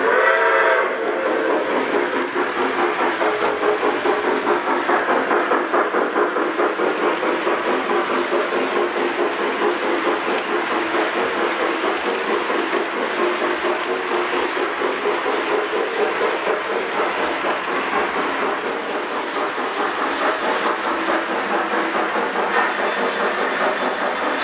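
Lionel O-gauge model trains rolling past on plastic-roadbed track: a steady clatter of wheels over the rail joints, with a short whistle at the very start.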